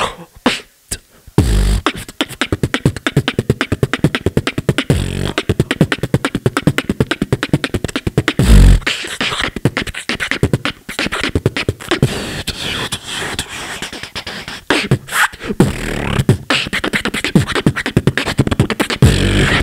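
Beatboxer performing into a handheld microphone, amplified through a PA: after a short pause, a fast, dense beat of clicks and snares starts about a second in, punctuated by deep bass kicks, the loudest near the middle.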